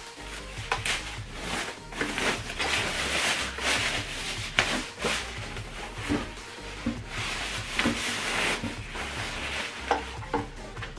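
Soft white protective wrapping rustling and crinkling as it is pulled off a boxy subwoofer, in two longer spells, with a few light knocks as the unit is handled.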